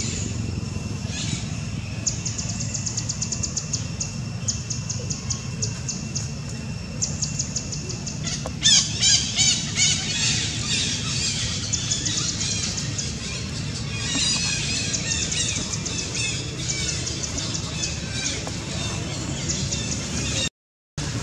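Birds chirping and trilling in rapid high series, with a louder cluster of chirps about nine seconds in, over a low steady rumble. The sound drops out briefly near the end.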